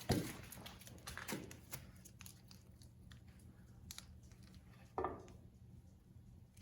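Light metal clicks, knocks and scrapes as the crankshaft of a 1931 Rumely 6A tractor engine is slowly worked out of its bearings, with a louder knock right at the start and another about five seconds in.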